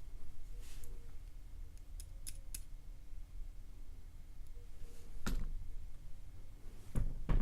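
Scattered small clicks and taps of metal tools working on a disassembled pin-tumbler lock, trying to draw a stuck spring out of a pin chamber.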